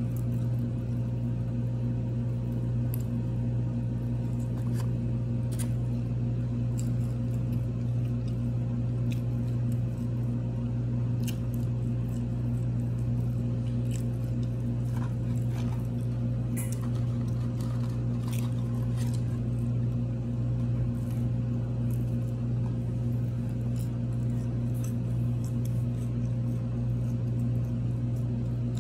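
A steady low hum fills the room with several even tones held constant throughout, and faint scattered clicks and rustles come and go over it.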